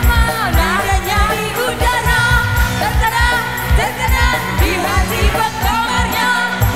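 Live dangdut band music through a loud PA: a drum kit beating steadily under electric guitar and keyboard, with women singing an ornamented melody into microphones.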